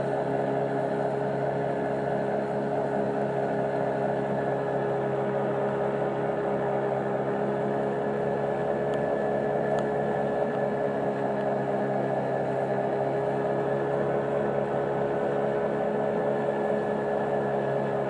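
Boat engine running at a steady speed: a constant hum that holds its pitch throughout, with two faint ticks just before halfway.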